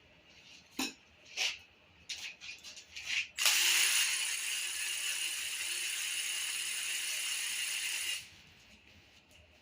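A few sharp knocks and clicks of tools and parts being handled, then a steady high hiss that starts suddenly, runs for about five seconds and cuts off.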